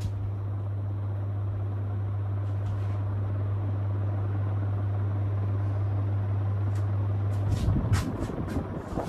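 Wattmaster WATRCF9 ceiling fan running on high speed: a steady motor hum under the rush of moving air. Near the end an irregular low rumble and a few clicks come in as the breeze buffets the microphone.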